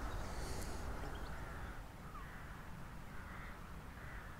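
Distant birds calling: a series of short harsh caws repeating every second or so, with a few faint high chirps, over a steady low rumble.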